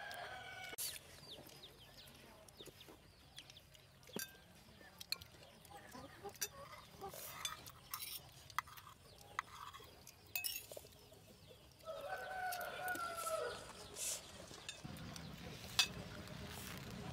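A rooster crowing once, about twelve seconds in, over faint scattered clinks of spoons on plates.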